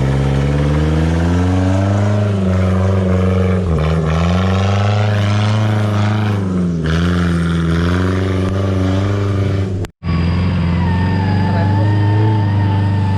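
Off-road 4x4's engine revving up and down repeatedly as it works under load on a rough track. After a brief cut about ten seconds in, the engine runs steadier and a wavering high whine is heard over it.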